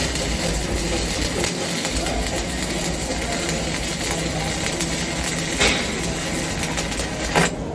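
Electric arc welding: the welding arc makes a steady, loud hiss while a bead is laid, then cuts off abruptly near the end.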